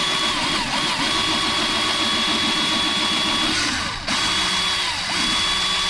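Power drill with a 1/8-inch bit running under load, drilling screw holes into a car's accelerator pedal. The motor whines steadily, and its pitch sags and recovers as the bit bites. It stops briefly about four seconds in, then spins up again.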